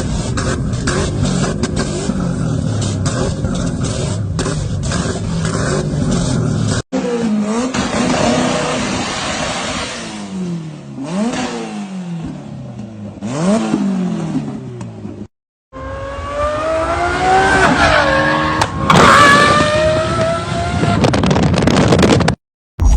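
Modified car engines revving with exhaust crackle, in three short clips. The first is a rough-running engine with rapid sharp cracks from the exhaust, the sign of fuel igniting in the pipes. Then come quick revs that rise and fall, and then a high-revving engine note that climbs and drops.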